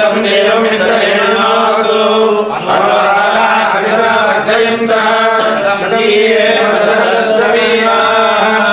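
Devotional chanting by a man's voice in long held melodic phrases, over a steady low drone.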